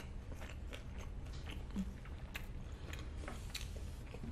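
Close-miked chewing of a fried birria queso taco: soft, irregular wet mouth clicks and smacks.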